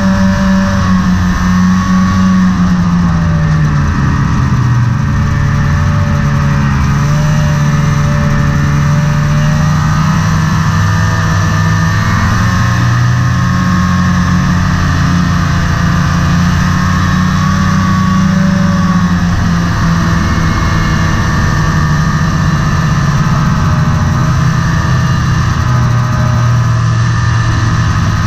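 Snowmobile engine running at trail speed, its pitch dipping and rising several times as the throttle eases off and opens again.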